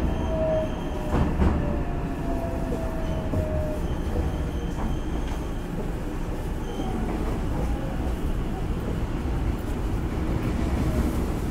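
Hankyu 9000 series electric train heard from inside the car: the Toshiba IGBT VVVF inverter whine falls in pitch as the train slows for the station, over a steady rumble of wheels on rail. There are a couple of knocks from the wheels about a second in.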